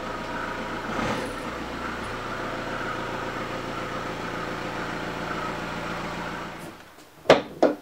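VW Golf Mk7's TDI diesel engine running steadily at low speed as the car creeps in, then switched off near the end. Two sharp knocks follow just after it stops.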